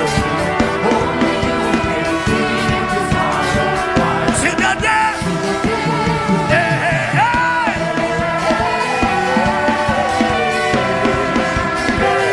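Live worship band music with a steady drum beat under sustained keyboard-like chords, and a voice singing over it, most clearly through the middle.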